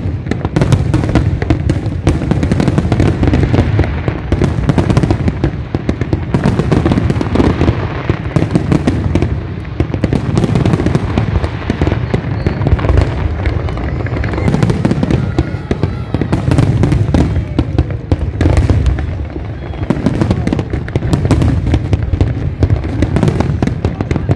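Aerial fireworks display: shells bursting in rapid, continuous succession, with bangs and crackling overlapping with no break.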